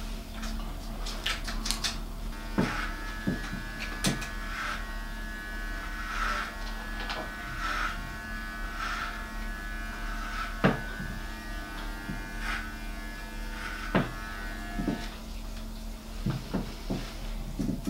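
Electric hair clippers buzzing while cutting hair, the buzz swelling about once a second as they pass through the hair. A few sharp clicks and knocks break in, two of them louder, about halfway and near the end.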